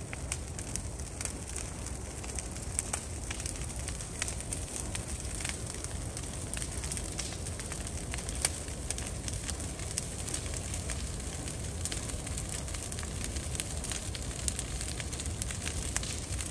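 Burn pile fire crackling and popping steadily over a low, even rush of noise, with one sharper pop about eight and a half seconds in.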